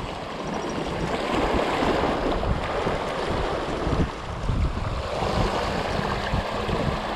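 Small waves surging over and draining off a rocky shore shelf, with wind rumbling on the microphone.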